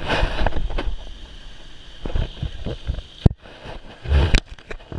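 Wind buffeting the microphone in irregular gusts, with low rumbles and a sharp knock about three seconds in.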